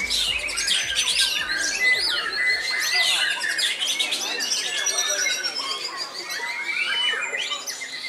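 White-rumped shama (murai batu) singing a fast, varied, unbroken stream of whistles, slurred glides and trills, with other birds singing over it at the same time.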